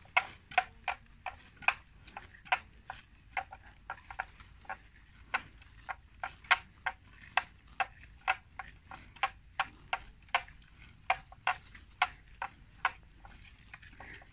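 Water buffalo grazing, giving a run of sharp snaps and clicks at about two a second, irregularly spaced, as grass is cropped and torn.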